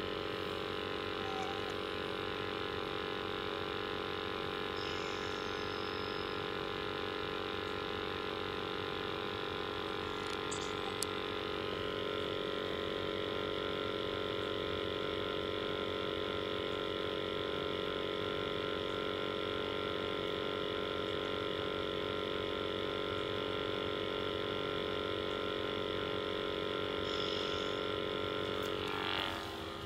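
Steady mechanical hum with several held tones from a Worcester Bosch Greenstar 30 CDI combi boiler firing at its minimum rate while a flue gas analyser samples its flue. The pitch pattern shifts slightly about twelve seconds in.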